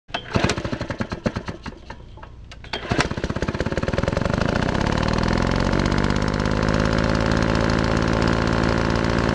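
An engine sputtering with irregular loud pops, catching with a sharp bang about three seconds in, then revving up and running steadily.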